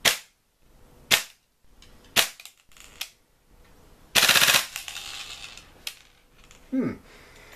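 Tokyo Marui MP7 airsoft gun, fitted with a Sound Hog mock suppressor, firing: three sharp single shots about a second apart and a fainter fourth, then a short full-auto burst about four seconds in.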